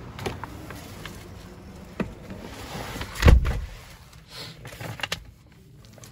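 Clicks and knocks from a pickup truck's door and fittings being handled, with one heavy thump a little over three seconds in.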